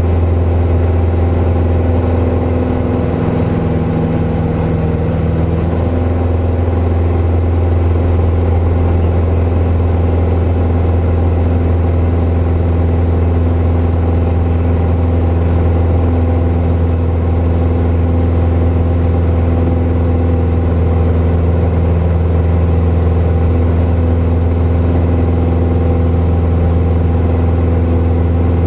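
Piper PA-28's piston engine and propeller droning steadily in cruise, heard from inside the cockpit.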